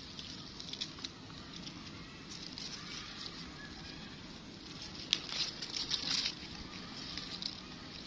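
Leafy green vegetable plants rustling and crackling as they are pulled and handled by hand, with a cluster of sharper crackles about five to six seconds in.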